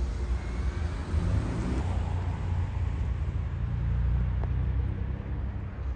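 A car driving past over the road, its tyre noise swelling and then fading in the first half, over a steady low rumble.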